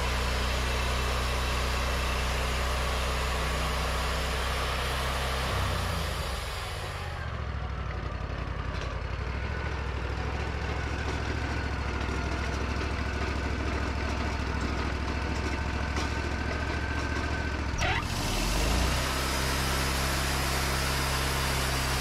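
Wood-Mizer hydraulic portable bandsaw mill's engine running steadily, dropping to a lower idle about six or seven seconds in, then revving back up about three-quarters of the way through.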